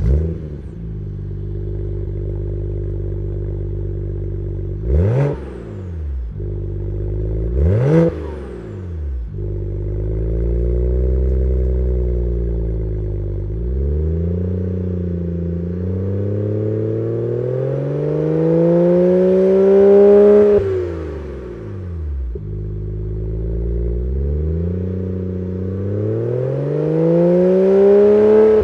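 BMW 3 Series engine heard from outside through a stainless steel 3-inch cat-back exhaust, flaring as it catches, then idling steadily. Two quick sharp throttle blips come around 5 and 8 seconds in, then a gentler rev, then two long revs that climb for several seconds before dropping back to idle, the second peaking at the very end.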